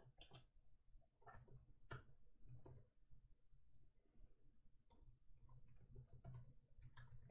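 Faint, irregular clicks of computer keyboard keys as a line of code is typed, the keystrokes coming in short uneven runs.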